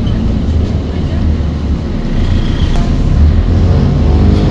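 BredaMenarinibus M240LS city bus's diesel engine running under load, heard from inside the passenger cabin as a steady low rumble. In the last second or so the engine note rises as the bus accelerates.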